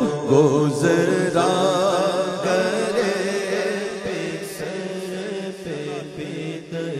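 Naat sung by a male voice without instruments, drawn-out melismatic phrases with a wavering pitch over a steady low drone; the level eases off slightly toward the end.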